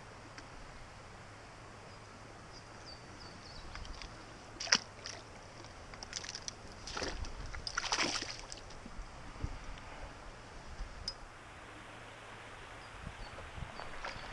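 Water splashing in creek shallows as a hand-landed rock bass is unhooked and released, mostly between about six and eight seconds in, over the steady rush of the creek's flow. A sharp tap about five seconds in, and a few faint high chirps.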